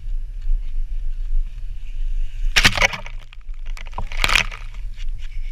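Lawn sprinkler water spraying and spattering around a handheld action camera, over a steady low rumble of wind and handling on the camera. Two short loud bursts of noise come about two and a half and four seconds in.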